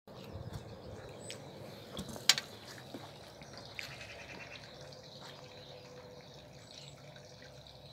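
Quiet background with a few light clicks, the sharpest a little over two seconds in, over a faint steady hum.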